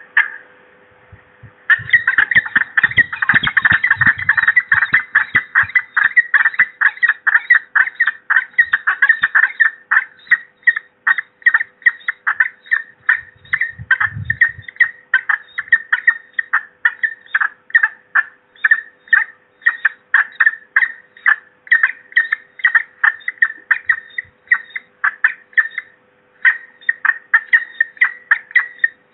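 Peregrine falcons calling at the nest: a long, rapid series of short, sharp, high calls, densest at first and then about three or four a second, with a brief pause near the end. A couple of low bumps come about two and fourteen seconds in, and a faint steady hum runs underneath.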